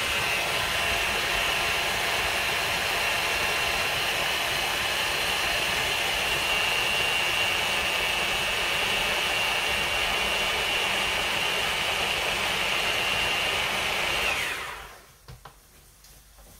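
Electric hand blender running steadily on its mini chopper bowl, puréeing chilli and citrus juice into a marinade. Near the end it is switched off and its whine falls away, followed by a couple of light knocks.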